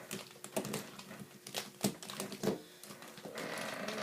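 Plastic speedcubes clacking and knocking against each other and the table as a pile of them is shuffled by hand, in irregular clicks.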